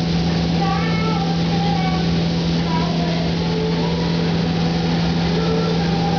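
Steady hum and constant rush of air in a paint spray booth while a spray gun lays on clear coat, unchanging throughout.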